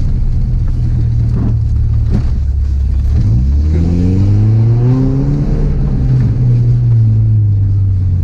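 Volkswagen Beetle engine under way off-road, running steadily, then revving up about three seconds in, its pitch climbing for a couple of seconds and then slowly easing back down.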